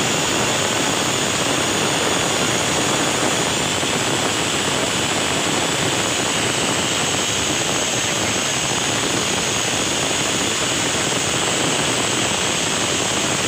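Industrial flatlock sewing machine with edge cutter running at speed as it stitches a hem on knit fabric: a loud, steady whir.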